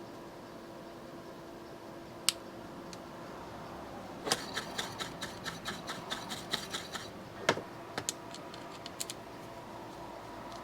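Small metal parts and a hand tool clicking and rattling while an electrical outlet is worked on: one sharp click, then a quick run of clicks for about three seconds, a louder click and a few more. A steady hum runs underneath.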